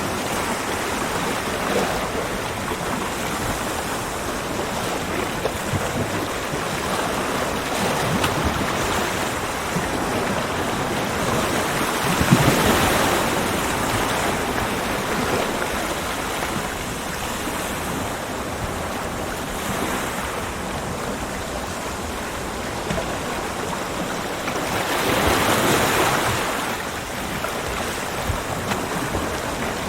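Ocean surf breaking on a beach: a continuous wash of waves that swells louder as a wave breaks about twelve seconds in and again near the end.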